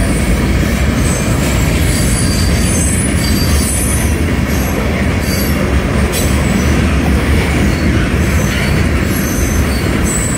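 A freight train's covered hopper cars rolling past close by: a steady, loud rumble of steel wheels on the rails, with brief high-pitched wheel squeals scattered through it.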